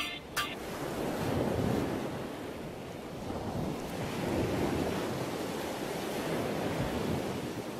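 A steady rushing noise, swelling and easing slowly, after the song's last beat just after the start.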